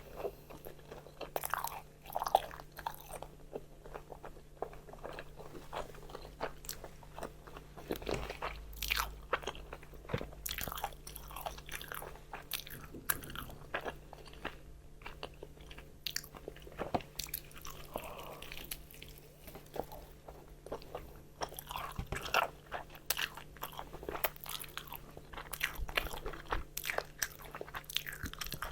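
Someone biting into and chewing crispy fried chicken close to the microphone: many sharp, irregular crunches of the crisp coating, with chewing in between.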